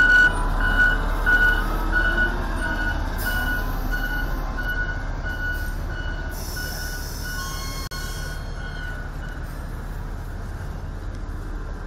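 Diesel engine of an LW500HV wheel loader running close by with a steady low rumble. A warning beeper sounds about twice a second for the first six seconds or so. Short bursts of hissing air come about three seconds in and again from about six to nine seconds.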